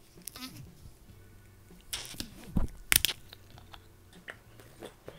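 Plastic screw cap twisted off a juice bottle: the tamper seal cracks with a quick run of small clicks, then louder snaps and crackles about two to three seconds in as the cap comes free.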